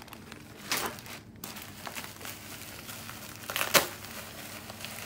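Plastic bubble wrap crinkling and rustling as hands dig through it inside a cardboard box, with two louder crackles, one about a second in and a sharper one nearly four seconds in.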